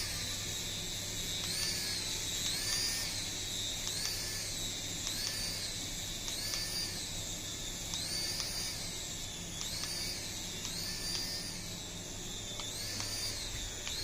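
Mini RC toy helicopter's small electric motors whining at a high pitch. The pitch swings up and back down about every second and a quarter, as the throttle is pulsed.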